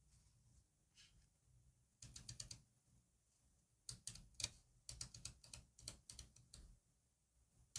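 Small, sharp taps and clicks of paper stickers and paper pieces being handled and pressed onto a diary page, in quick clusters: one about two seconds in, another around four seconds, and a longer run until almost seven seconds.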